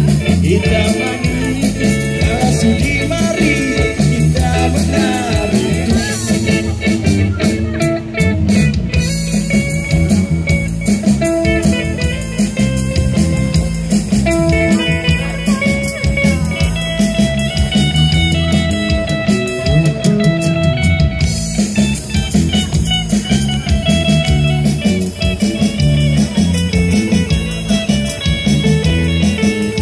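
Live band music through a PA: electric guitar to the fore over electric bass and a steady beat, with some singing.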